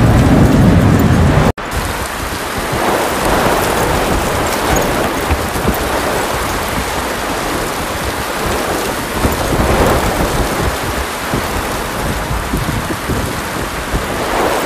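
Rushing floodwater for about a second and a half, cut off abruptly, then steady rainstorm noise with rain and wind buffeting the microphone.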